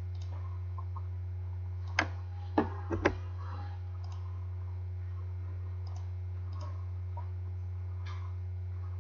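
A computer mouse clicked four times in quick succession, sharp clicks within about a second, over a steady low hum.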